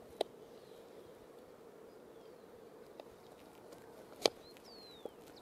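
Kitchen knife cutting vegetables on a wooden chopping board: a few sharp knocks of the blade striking the board, the loudest about four seconds in.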